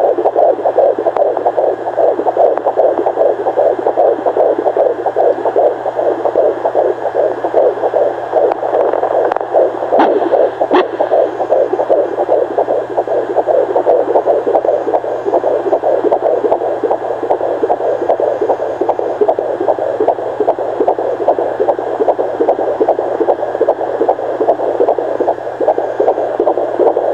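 Fetal heartbeat at 18 weeks heard through a doppler fetal monitor: a rapid, steady pulsing whoosh, possibly mixed with the placenta's and umbilical cord's blood flow.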